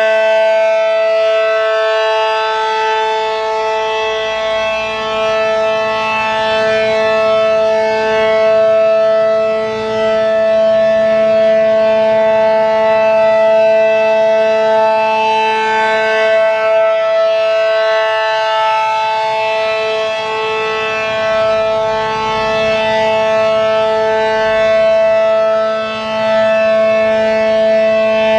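ACA Allertor 125 electromechanical siren with 8/12 ports and a Penetrator shroud, sounding a full alert: a loud, steady chord of tones held without rising or falling, its level swelling and dipping slightly.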